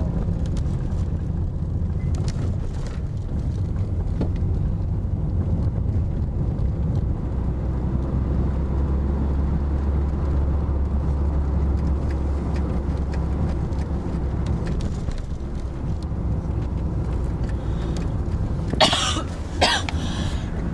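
Steady low rumble of a car's engine and road noise heard from inside the moving car. Near the end, a person coughs three times in quick succession.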